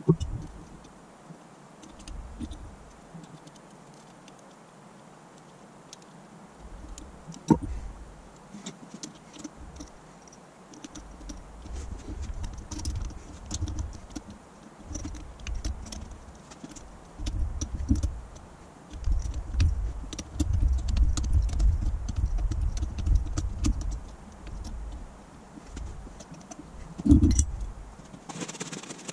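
Hands working parts onto the top of a Holley electric fuel pump's motor housing: scattered small metallic clicks and rubbing, with low handling bumps, and a louder knock near the end.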